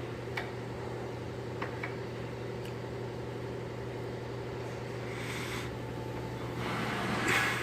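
Steady low machinery hum, with a few light metal clicks in the first few seconds as an Allen wrench works the bolt holding a safety chuck's bottom insert, and two short rushing swells near the end.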